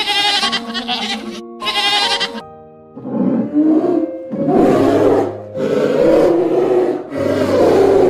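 Goats bleating twice with a wavering, quavering voice, then a large animal roaring four times in long, rough calls of about a second each.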